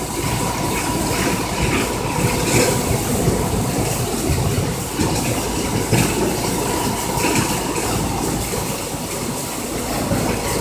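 Diesel engine of a concrete pump truck running steadily under load while it pumps concrete, a continuous low rumble.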